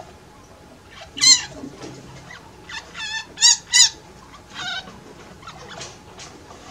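Baby chinchilla and its mother giving contact calls: about five short, high squeaks with a warbling pitch, one about a second in and three in quick succession near the middle. This is the call that mother and baby make on making contact with each other, and it fades as the baby grows older.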